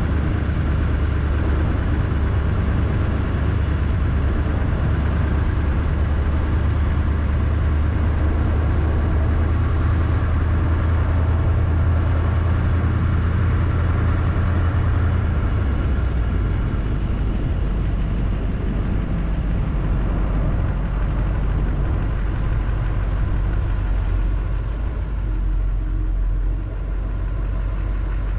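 Engine and tyre noise of a vehicle driving slowly on a paved road: a steady low rumble with a fainter hiss over it. The rumble drops lower about halfway through.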